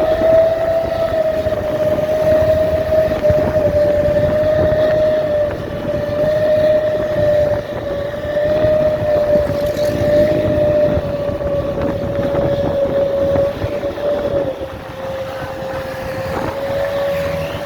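Bus air horn of the ship-horn type ('klakson kapal') sounding one long steady blast, a single held tone that dips slightly in pitch near the end, over road and engine noise.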